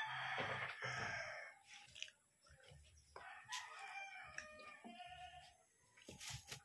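A rooster crowing: a loud crow at the start and another crow a few seconds later. A short knock comes near the end.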